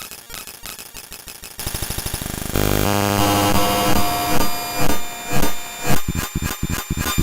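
US Emergency Alert System alarm digitally sped up to an extreme rate, so it no longer sounds like an alarm but like a harsh, chopped electronic noise. It shifts abruptly and grows louder about one and a half seconds in and again about two and a half seconds in, then swells and dips in loudness.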